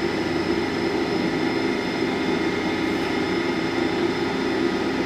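Brown & Sharpe No. 2 universal cylindrical grinder running: its motors and wheel spindle make a steady hum with a few thin, steady high whine tones over it.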